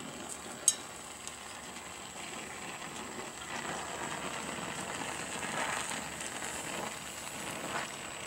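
Oxyacetylene torch flame hissing steadily on steel plate, with a faint sizzling as water boils and pops out of the joint being heated for brazing. A single sharp click less than a second in.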